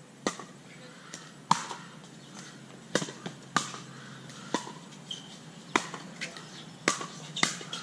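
Pickleball rally: paddles striking the hollow plastic ball in sharp pops, about one a second, with a few fainter pops between them.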